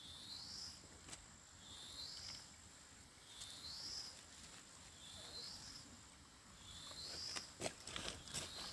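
An insect's short, rising, buzzy call repeats about every second and a half over a thin, steady, high insect whine. Near the end come a few sharp snaps and rustles as chive stems are cut with a knife.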